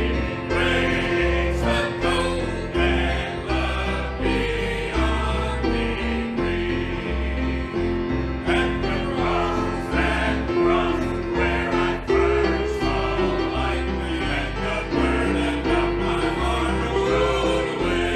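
Gospel hymn music: voices singing over an instrumental accompaniment with a steady, stepping bass line.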